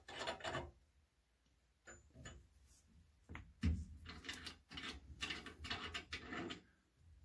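Threaded caps being unscrewed by hand from the service-valve ports of a tankless water heater: short bursts of scraping and clicking, with a single knock a little past halfway, then a run of quick scraping turns.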